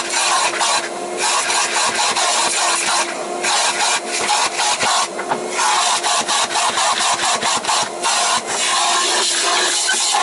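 Rapid rubbing and scrubbing strokes with short breaks, dirt being cleaned off a vacuum cleaner's parts.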